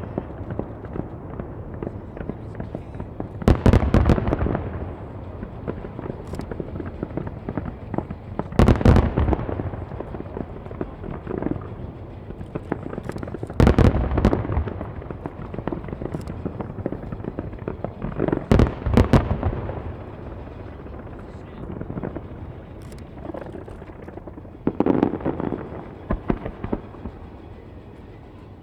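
Large aerial firework shells bursting in loud clusters about every five seconds, five times. Each cluster fades in a rolling, echoing rumble, with smaller pops and crackling between them.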